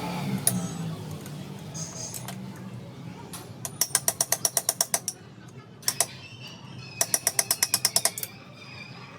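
Hand ratchet wrench clicking in two quick runs of about eight clicks a second, its pawl ratcheting as the handle swings back while a nut is worked loose. A few single clicks and knocks of the tool fall between the runs.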